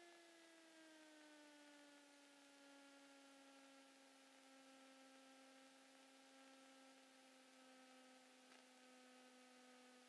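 Near silence: only a faint electrical hum with overtones in the cockpit audio feed, its pitch sliding down slightly in the first two seconds and then holding steady.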